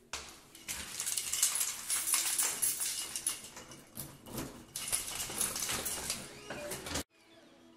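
A bunch of keys on a keyring jingling and clinking as they are handled at a doorknob lock, a dense run of metallic clinks that stops abruptly near the end.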